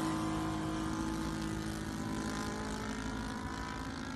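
NGH GF38 single-cylinder four-stroke gasoline engine driving the propeller of a radio-controlled model airplane in flight, holding a steady note that slowly fades as the plane flies away.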